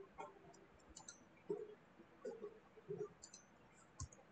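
Faint, scattered computer keyboard and mouse clicks, a few keystrokes a second at most, with long gaps between them.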